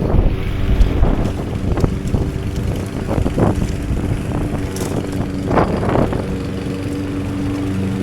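Gasoline lawn mower engine running steadily, with intermittent rushes of wind on the microphone.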